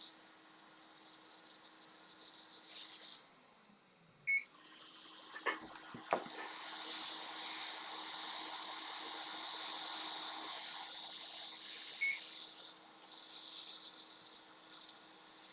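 Hot air rework station blowing: a steady hiss of hot air that stops briefly about three and a half seconds in, then comes back and holds. A few small sharp clicks sound around four to six seconds in.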